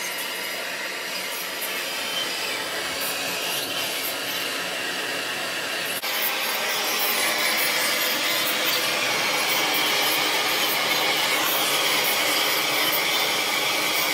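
Gas soldering torch flame hissing steadily as it heats a copper pipe elbow to sweat a solder joint. It gets louder about six seconds in.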